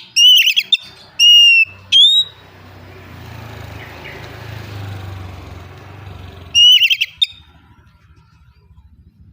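Oriental magpie-robin (kacer) singing loud, clear whistled phrases of quick rising and falling notes for about two seconds, then one more short burst near seven seconds in. A softer, steady low rumbling noise fills the gap between them.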